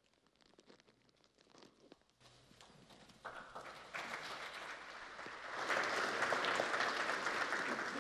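Audience applause: a few scattered claps that swell into dense, steady clapping, loudest near the end.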